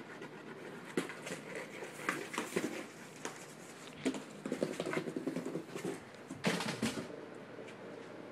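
A cat scrabbling about inside a cardboard box, its claws scratching and rustling on the cardboard in irregular bursts, the loudest a little before the end.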